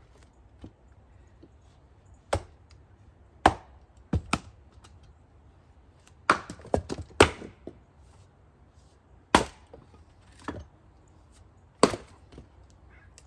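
Axe striking a knotty chunk of firewood on a wooden chopping block: a string of sharp wooden knocks at irregular spacing, with a quick run of several knocks in the middle.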